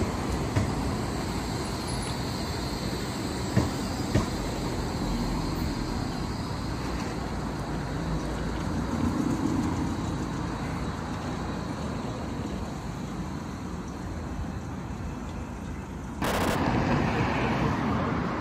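Bombardier Flexity 2 tram running along street track, a steady rumble with a few sharp clicks in the first few seconds. About sixteen seconds in, the sound cuts abruptly to a louder, hissier outdoor background.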